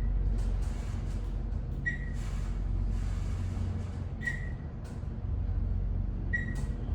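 Dover elevator car's short, high electronic beep, sounding three times about two seconds apart over the steady low hum of the moving cab. It is an unusually glitchy-sounding Dover beep.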